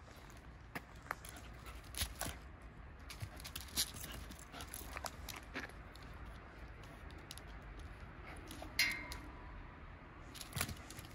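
Two wolfdogs greeting on leads: scattered small clicks, scrapes and jingles from claws on concrete and leash clips, with one short whine about nine seconds in.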